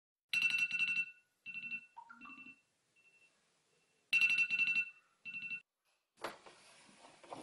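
Smartphone alarm ringing at 3 a.m. for an early wake-up: a repeating pattern of bright chime tones that plays twice and stops. A short burst of noise follows near the end.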